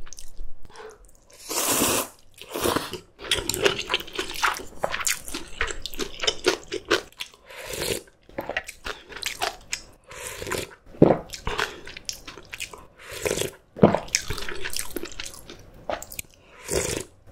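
Close-miked eating: repeated crisp crunching bites and chewing of kimchi, mixed with a few longer wet slurps of noodle soup.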